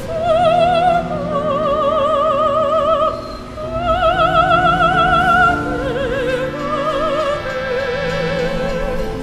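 Background music: an operatic voice singing long held notes with a wide vibrato over sustained accompaniment.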